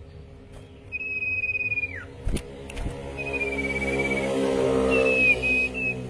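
Sirpu songbird giving long, clear whistled notes in three phrases, the first dropping sharply at its end. Beneath them a low steady hum swells in the second half, and two dull thumps come in the middle.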